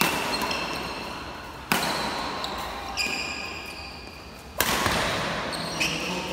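Badminton rackets smacking a shuttlecock back and forth in a rally, three sharp hits that echo around a large hall. Shoes squeak briefly on the court floor between the hits.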